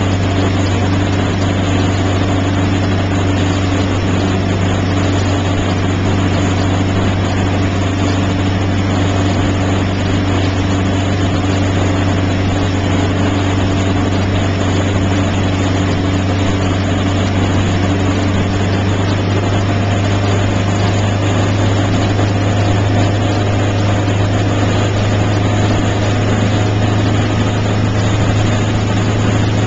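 Motorboat engine running steadily at towing speed, a constant low drone, under an even rush of water and wind.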